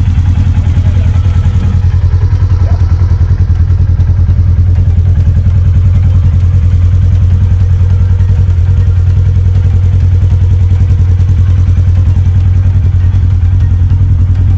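An engine idling steadily close by: a deep, even drone with a fast regular pulse that does not change.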